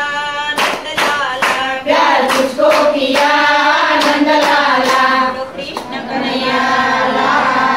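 A group of women singing a Krishna bhajan in unison, clapping their hands in time at about two claps a second. The clapping stops about five seconds in while the singing carries on.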